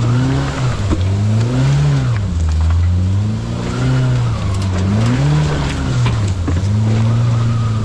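Off-road vehicle engine revving up and easing off about five times in a row, with a few short knocks in between.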